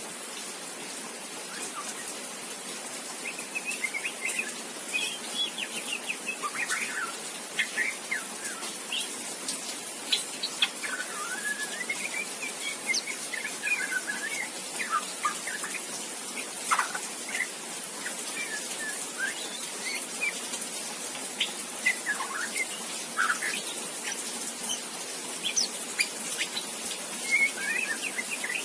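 Juvenile white-rumped shama, about two and a half months old, giving soft, scattered chirps and short twittering phrases with irregular gaps: early practice song (riwik) of a young bird learning to sing.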